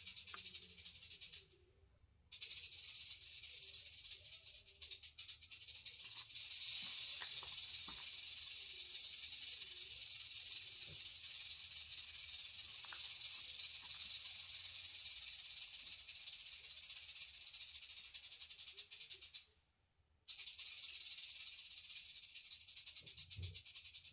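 Massasauga rattlesnake rattling its tail: a steady, high, dry buzz that breaks off briefly twice, near the start and near the end.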